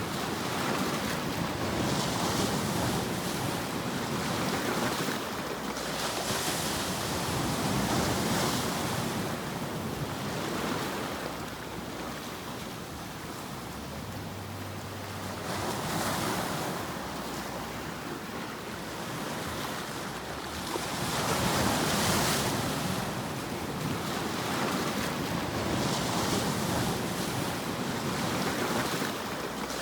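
Continuous rushing noise for sleep that swells and eases every four to six seconds, each swell brightening in the top end.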